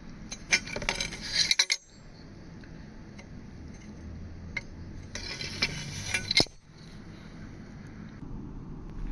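Small hard objects clinking and clattering against one another in two short bursts, one near the start and one past the middle.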